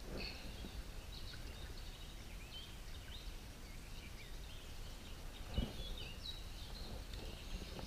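Birds singing in short chirps and trills over a steady low rumble of outdoor background noise, with a single brief knock about five and a half seconds in.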